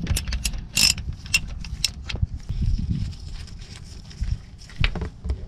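Ratchet clicking as a 14 mm hex socket unscrews the already-loosened drain plug of a Mercedes W124 differential: a run of quick metallic clicks for the first two seconds, then a quieter stretch and a few more clicks near the end.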